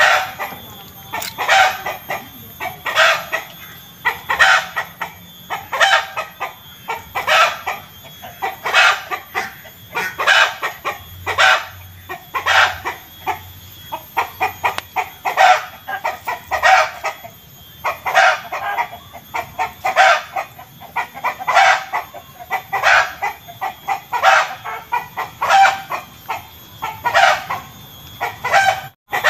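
Domestic chicken cackling 'petok-petok' over and over. Each burst is a run of quick clucks, and a new one comes roughly every second.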